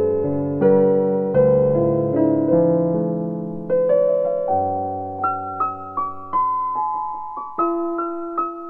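Slow solo piano music: full chords struck about once a second in the first half, giving way about halfway through to a sparser melody of single notes higher up.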